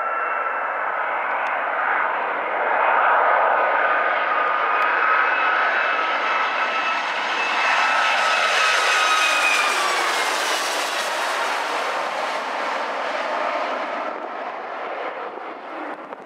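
Boeing 757-200's twin turbofan engines on final approach, a jet roar with a steady whine that grows louder as the airliner passes low overhead. The whine drops in pitch as it goes by, and the roar fades as the plane heads down toward the runway.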